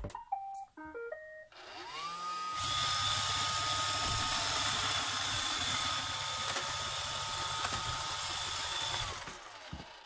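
iRobot Roomba 580 robot vacuum started from its Clean button: a few short beeps, then its motors spin up with a rising whine and the vacuum and brushes run with a steady whirring hiss for about six seconds. Near the end the motors wind down with a falling whine as it is switched off.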